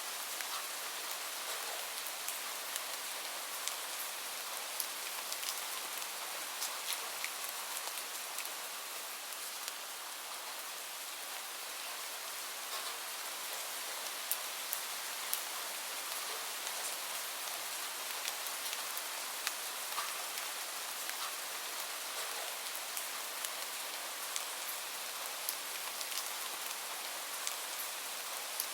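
Steady rain, with many single drops ticking sharply through it.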